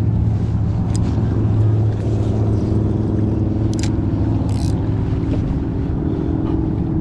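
Steady low mechanical hum from the kayak's drive while it moves along trolling a lure, with a few light clicks around the middle.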